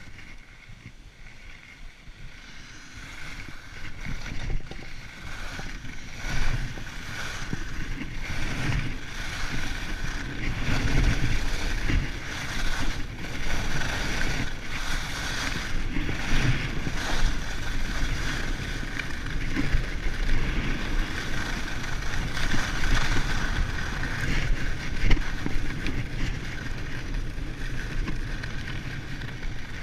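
Skis hissing and scraping over groomed snow on a fast run, with wind buffeting the camera microphone. It grows louder a few seconds in as the skis pick up speed.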